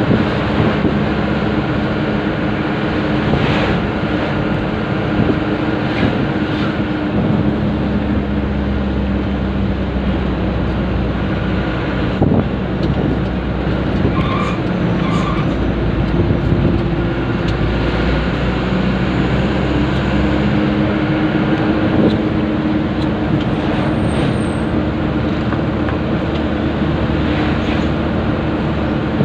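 Loaded cargo truck's diesel engine running under way, heard inside the cab over tyre and road noise, its pitch shifting a few times as it pulls. Two brief high beeps sound about halfway through.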